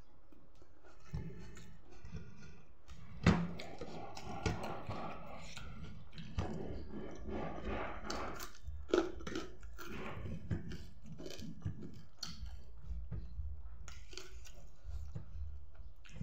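A person eating by hand: chewing and mouth sounds, with small clicks and taps of fingers and food on the plate, and one sharp knock about three seconds in.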